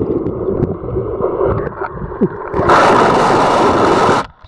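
Icy slush water gurgling and sloshing, heard muffled through a submerged microphone. About two-thirds through, a loud rushing hiss of water starts and lasts about a second and a half, then cuts off suddenly.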